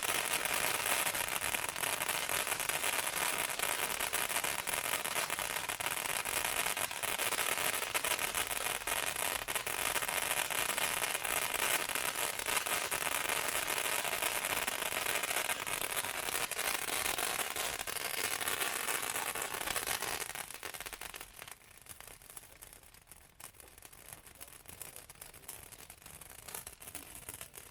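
500 gram ground fountain firework spraying with a dense hiss full of crackling, dying down about twenty seconds in.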